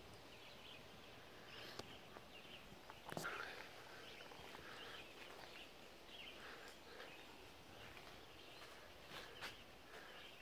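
Near-silent outdoor background with faint, scattered bird chirps and a few soft knocks, the loudest about three seconds in.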